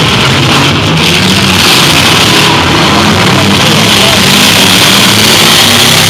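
Full-size demolition derby cars with their engines running hard together, making a loud, steady din with no single crash standing out.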